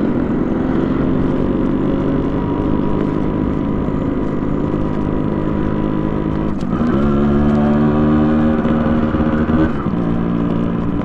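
Yamaha RX100's single-cylinder two-stroke engine running under way through a custom expansion-chamber exhaust. About two-thirds in there is a click and a short dip in pitch, like a gear change. The engine then pulls louder at a steady pitch for about three seconds before easing off near the end.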